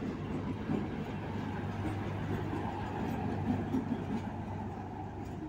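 Passenger train rolling slowly past, a steady low rumble and hum from the coaches' wheels and running gear on the rails.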